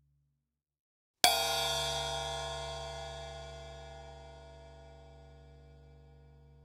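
Cartoon sound effect: one hard metallic clang about a second in, ringing on with many overtones and a low hum, fading slowly over several seconds.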